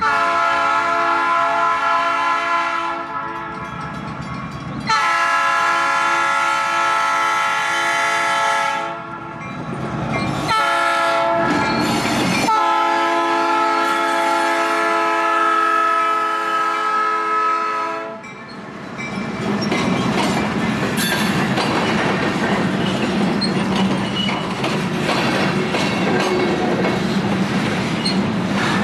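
Diesel freight locomotive's multi-chime air horn sounding four blasts, the third short and the last the longest, the crossing signal. Then the locomotives and tank cars roll past close by, with wheels clattering over the rail joints.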